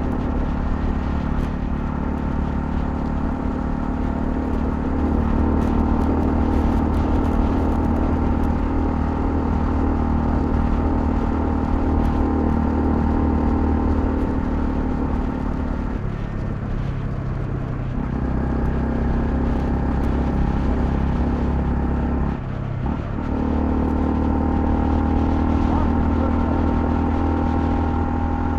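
Honda CL250 motorcycle engine running steadily under way. Its note shifts lower a little past halfway and briefly drops, then picks up again, about three quarters through.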